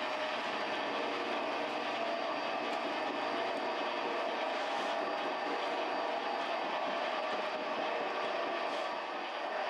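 Commercial spiral dough mixer running steadily, its hook turning through a bowl of barbari bread dough.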